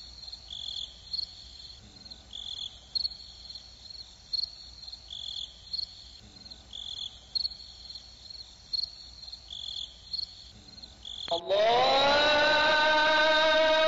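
Insects, crickets by the sound of it, chirping in a steady high chorus with repeated louder chirps. Near the end, music cuts in suddenly and much louder, its notes sliding upward and settling into a held chord.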